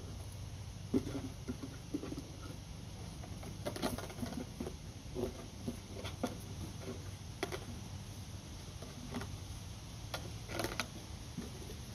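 A puppy chewing and pushing a hollow red toy around on grass: irregular clicks and knocks of teeth against the toy, over a low steady rumble.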